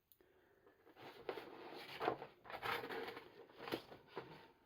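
Paper instruction sheets rustling and crinkling as they are handled, with a few small clicks.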